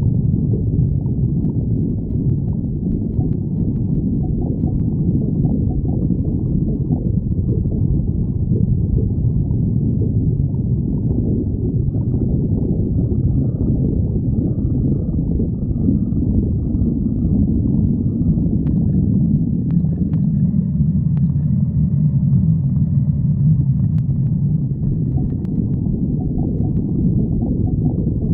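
A person's stomach growling: a low, unbroken churning sound, with faint higher tones coming in over its middle stretch.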